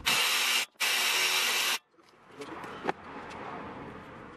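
Handheld power tool run in two short bursts, the second about a second long, each cutting off sharply, spinning out the clutch pressure-plate bolts. A single light knock follows about three seconds in.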